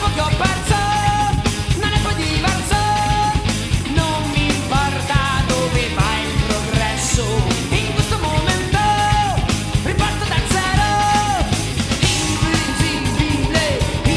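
Rock band song: drums keep a steady beat under guitar and held, bending melody notes, with a voice singing.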